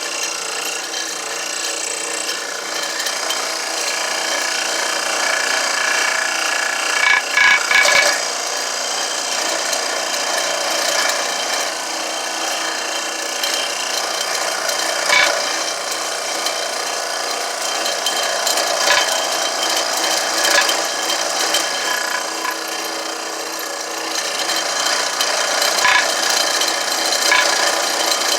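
A power tool running steadily as it grinds and sands down a piece of wood, with a few brief knocks as the piece shifts against it.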